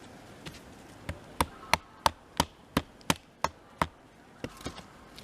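A wooden baton stick strikes the back of a small hatchet's head, driving the blade into a log. It makes a run of about nine sharp knocks, roughly three a second, then a few lighter taps near the end.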